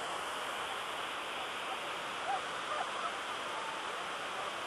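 Steady rushing of the 9/11 Memorial reflecting pool's waterfall, water pouring down the pool walls, with a few faint short sounds about halfway through.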